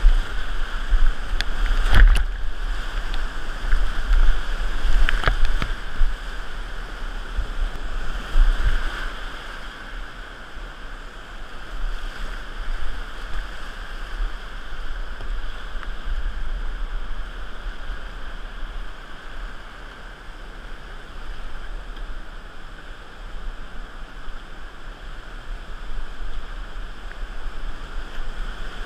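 Whitewater rapids rushing and churning around a kayak, with low rumbling buffets. A few sharp knocks and splashes come in the first six seconds, and the roar eases a little after about ten seconds.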